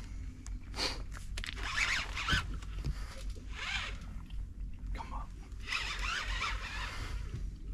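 Fishing reel whirring in about four short bursts as line is worked against a hooked sturgeon on a heavily bent rod.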